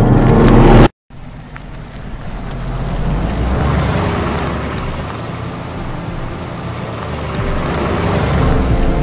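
A loud rising swell that cuts off abruptly about a second in, followed by the steady rush of wind and tyre noise from a car driving at speed on a highway, swelling and easing.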